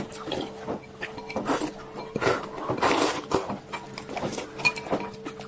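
Scattered light clinks and knocks of a spoon and bowl at a baby's mealtime, with a faint steady hum underneath.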